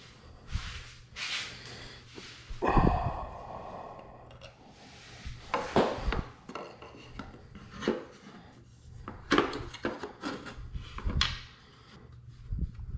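Base plate of a Sur Ron electric dirt bike being handled and fitted under the frame: irregular knocks, clicks and scrapes, with one louder clang and a short ring about three seconds in.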